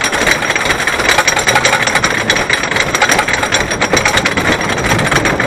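Wooden roller coaster's lift-hill chain and anti-rollback ratchets clattering in a rapid, steady rhythm as the train is hauled up the lift hill.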